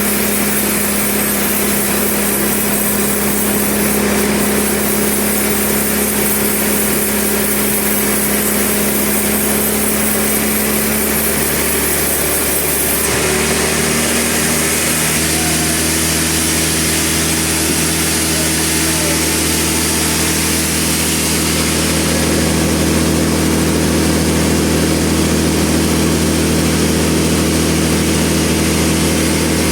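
Sawmill's engine running steadily, its note shifting about halfway through.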